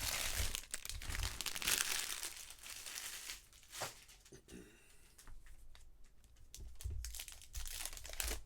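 Crinkly plastic packaging being torn open and crumpled by hand, loudest in the first few seconds, then quieter handling clicks, with another burst of crinkling near the end.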